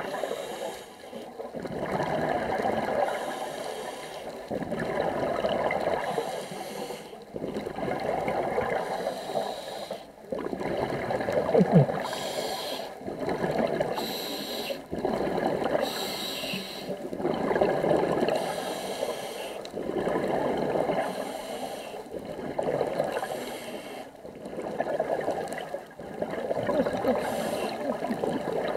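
Scuba diver breathing through a regulator underwater: breaths drawn in and bubbling exhalations repeat in a steady cycle about every two to three seconds.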